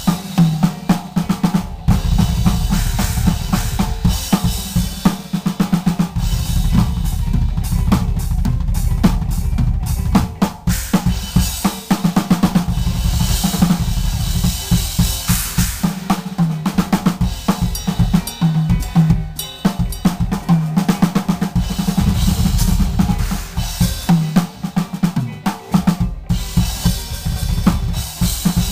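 Acoustic drum kit playing a songo groove with improvised fills: fast interlocking bass drum, snare and rimshot hits with rolls, and cymbals ringing out in the middle stretch.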